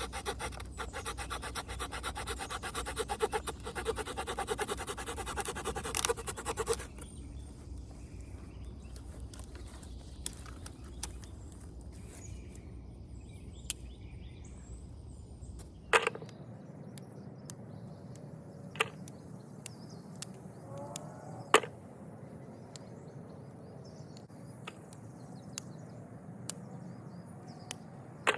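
Victorinox Fieldmaster Swiss Army knife's small folding saw cutting a branch of dead, very hard dogwood in quick back-and-forth strokes, stopping about seven seconds in. After that only a low outdoor background with a few sharp clicks.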